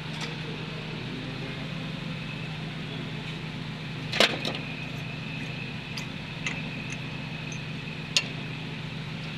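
Engine running steadily, with its worn, stretched chain buzzing; the chain has rubbed away its broken support. A few sharp clicks stand out, the loudest about four seconds in and again near the end.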